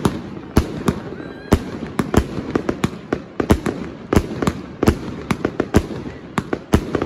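Triplex XB4100 'Air Force One' fireworks cake firing shot after shot, with sharp, irregular bangs about two to three a second.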